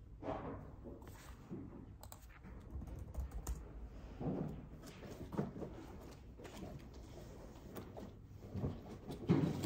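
Typing on a laptop keyboard: irregular soft key clicks, with a few duller knocks in between.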